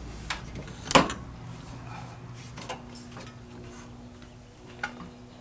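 A few sharp knocks and clinks, the loudest about a second in, over a steady low hum.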